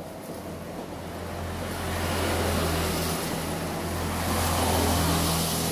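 A motor vehicle running past on the road, its engine hum and road noise swelling about two seconds in and again near the end.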